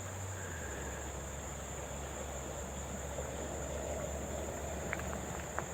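Steady high-pitched trilling of insects, likely crickets, with a few faint clicks about five seconds in.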